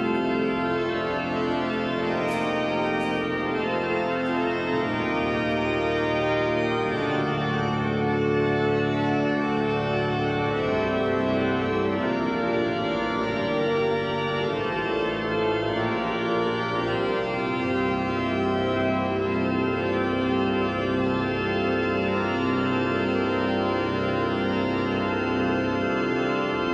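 Church pipe organ playing slow, held chords that change every second or two.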